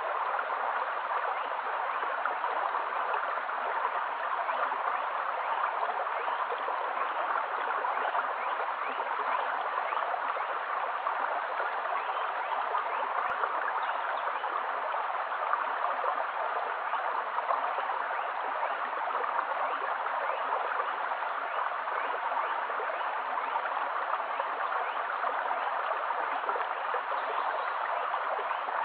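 Shallow stream flowing over a bed of pebbles and stones, a steady, even rush of running water.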